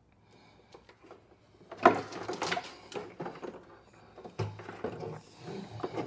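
Handling noise as a golf cart's metal onboard charger and its cord are moved and set down on the battery case: a run of clattering knocks and clicks, the sharpest about two seconds in, with more knocks near the end.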